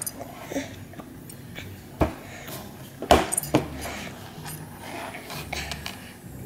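Scattered light knocks and taps on a plastic high-chair tray, the loudest few about two to three and a half seconds in.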